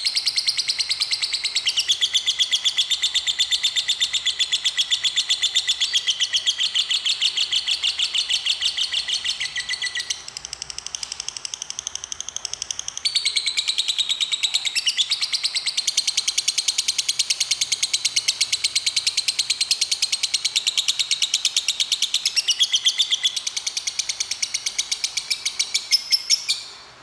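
Lovebird ngekek: a long, unbroken run of fast, shrill chirps, the prolonged chattering song that keepers prize. It softens for a few seconds about ten seconds in, then picks up again and stops abruptly near the end.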